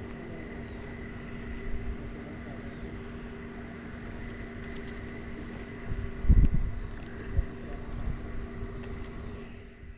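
A steady machine hum, with a few low thumps, the loudest about six seconds in, and some faint clicks.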